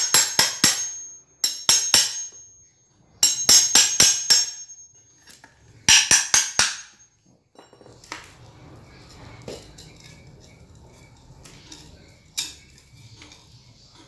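Hammer striking a steel cold chisel in quick runs of metallic blows, about four a second with a high ring, driving the chisel between a cast concrete slab and its form to knock the form loose. The hammering stops after about seven seconds, leaving quieter scraping as the loosened form is worked free, with one sharper knock near the end.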